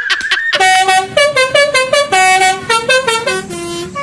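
Basuri-style telolet horn playing a quick tune of short held notes that step up and down about four times a second. Before it, a wavering tone with fast ticking cuts off about half a second in.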